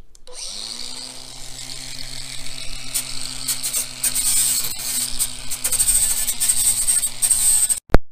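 Makita LXT cordless angle grinder with a flap disc spinning up and grinding the jagged cut metal edge of a van-roof sunroof opening. A steady motor whine sits under a hissing rasp that rises and falls as the disc bears on the metal. The grinder stops abruptly near the end, and a single sharp click follows.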